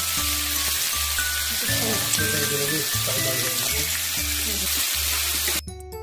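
Pork belly slices and vegetables sizzling on a grill pan, a steady hiss with background music over it. The sizzling cuts off suddenly near the end, leaving only the music.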